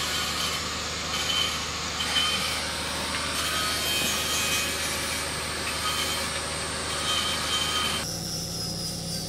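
Wood being sawn, a continuous dense scratching noise that cuts off abruptly near the end.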